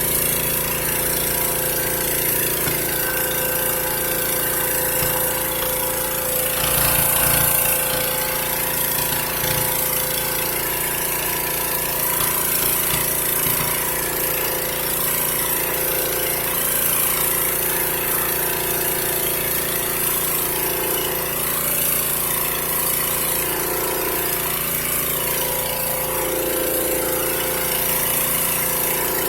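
High-pressure hydro-jetter running steadily at about 3,100 psi, its engine and pump droning under a constant high hiss, while it blasts grease out of a clogged kitchen sink drain. It briefly swells louder about seven seconds in.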